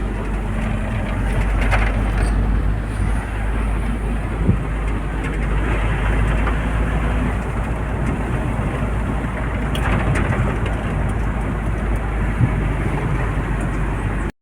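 Hyundai HR light truck heard from inside the cab while driving: a steady engine drone and road noise, with a couple of brief knocks about four and a half and twelve and a half seconds in.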